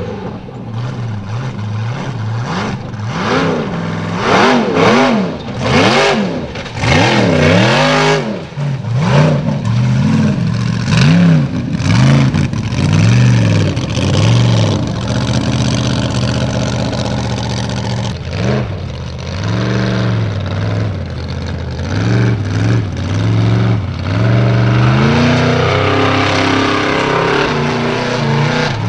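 Formula Offroad hillclimb buggy engines revving hard in quick surges, the pitch rising and falling again and again as the cars climb a steep slope. The surges come fastest in the first eight seconds, then the revs are held longer and steadier.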